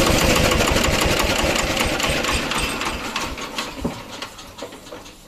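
26 HP single-cylinder diesel engine driving an air compressor, running and then winding down to a stop: its firing beats slow, spread apart and fade over the last two seconds.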